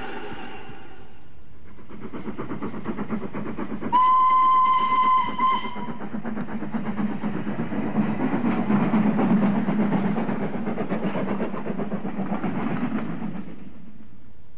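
Steam locomotive hauling a train past: a held whistle dies away in the first second, then rhythmic exhaust chuffs build. About four seconds in the engine gives one steam whistle blast lasting about two seconds. The chuffing and wheel noise grow loud as the train passes close, then cut off shortly before the end.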